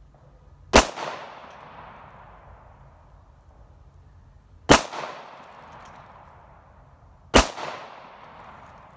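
Three shots from a custom Glock 19 9mm pistol in slow aimed fire, the first two about four seconds apart and the third about two and a half seconds later. Each sharp report trails off in a long echo.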